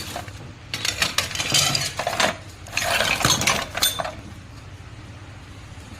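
Metal parts clattering and clinking as they are handled, in two bursts of rapid knocks, the second ending about four seconds in.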